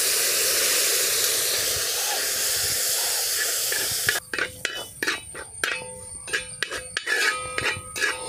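Vinegar poured into hot oil and spice masala in a metal uruli sizzles with a loud, steady hiss. About four seconds in the hiss drops away, and a metal ladle stirs the paste, clicking and scraping against the pan.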